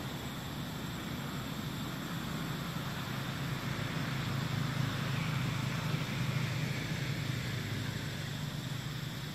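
Steady low rumble under an even hiss of outdoor background noise, growing somewhat louder in the middle.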